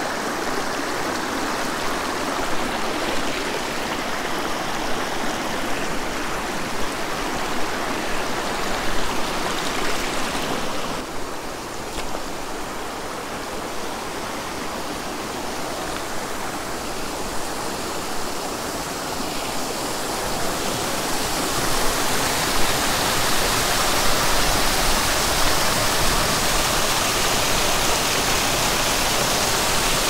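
Small waterfall splashing in several streams over a fallen log onto rocks: a steady rush of falling water that gets louder about two-thirds of the way through.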